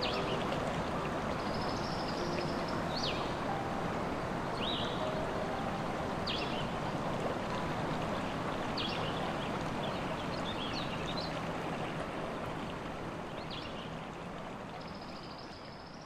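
Steady rush of a flowing stream with small birds chirping every second or so, short high calls, many dropping in pitch. The whole fades out near the end.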